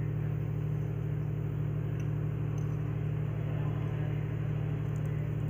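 A steady low machine hum, even and unchanging, like a motor or fan running continuously.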